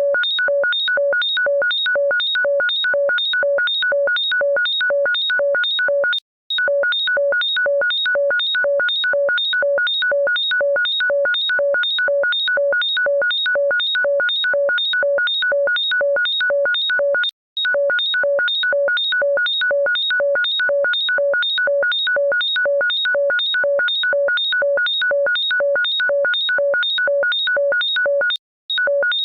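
Electronic ringtone of rapid, evenly spaced beeps, about three a second, each a chord of a few fixed high-pitched tones, loud and unchanging. It stops for a moment about every eleven seconds and then starts again.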